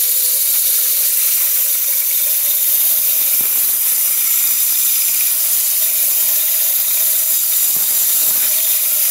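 Handheld power drill with a core bit grinding a test core out of a glued floor layer: a loud, steady grinding hiss with a faint motor hum underneath.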